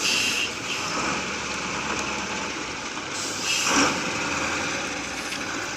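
A vehicle's engine running steadily, with a short, louder rush of noise a little past halfway.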